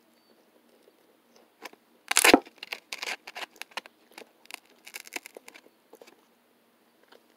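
Fork cutting and tearing through crisp rye toast on a paper plate: a loud crackly crunch about two seconds in, then further bursts of crackling near three and five seconds.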